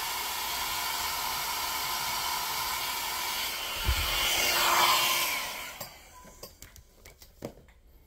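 Hand-held blow dryer running steadily while heating the covering over a spliced wire. About four seconds in there is a low thump and the dryer gets louder as it swings toward the microphone. It is switched off about a second later and winds down, leaving a few light handling clicks.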